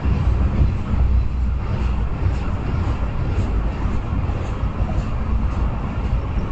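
Freight train cars rolling past with a steady low rumble and a few faint clicks.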